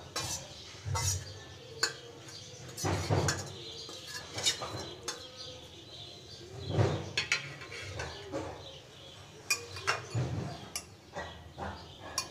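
A steel spoon scraping and clinking against a steel plate and a cut-glass bowl, with irregular light clinks and knocks as crumbled food is scraped into the bowl and handled.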